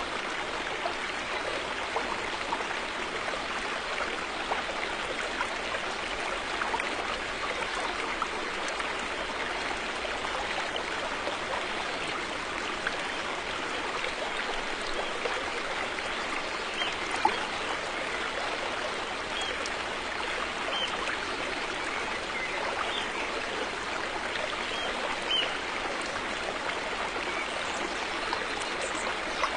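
River water flowing steadily over stones, a continuous rushing with small splashes and trickles; one brief sharper splash or click about 17 seconds in.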